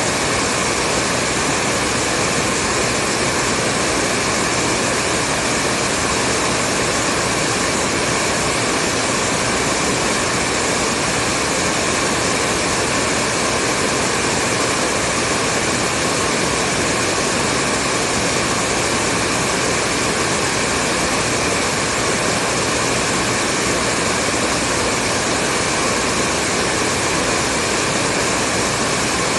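Hair dryer running steadily: a constant fan whoosh with a faint whine, unchanging in level and pitch.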